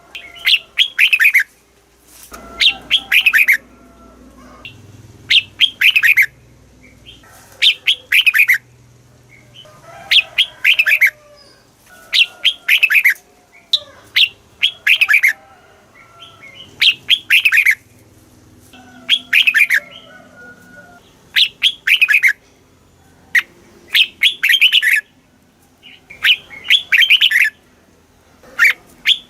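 Red-whiskered bulbul singing: short phrases of a few clear, whistled notes, many sliding down in pitch, repeated about every two seconds.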